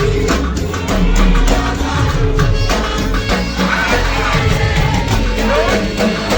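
Upbeat gospel music: singing over a steady drum beat.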